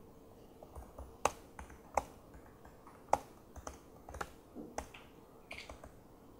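Typing on a laptop keyboard: irregular key clicks, with a few sharper, louder taps among them.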